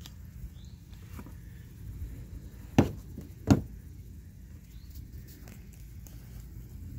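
Two sharp knocks about two-thirds of a second apart, a little before the middle, over a low steady rumble.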